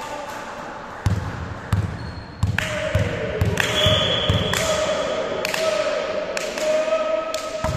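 A volleyball bounced repeatedly on a wooden sports-hall floor: a run of thuds, two or three a second, from about a second in until halfway through. A drawn-out high tone comes in over the thuds from about two and a half seconds in.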